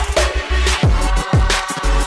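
Background music with a heavy electronic beat: deep bass-drum hits whose pitch drops quickly, over sharp hi-hat-like ticks.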